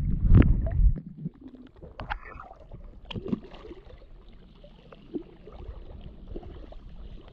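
Pond water sloshing and splashing against a waterproof camera held at the water's surface, a loud low rumble through the first second, then quieter small lapping splashes and drips.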